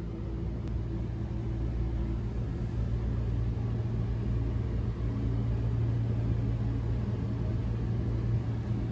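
Steady low rumbling hum with an even hiss behind it, unchanging in level.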